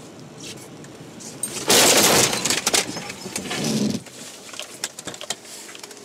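Car collision heard from inside the car: a sudden loud crash about two seconds in, followed by a couple of seconds of crunching and rattling that die down into scattered small clicks.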